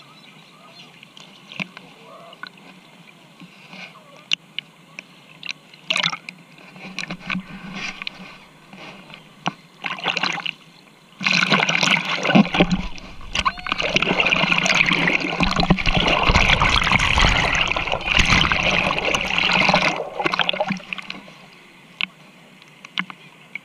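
Sea water splashing and sloshing close by: scattered small splashes at first, then about nine seconds of loud, continuous churning splashing from about eleven seconds in, dying back to light splashes near the end.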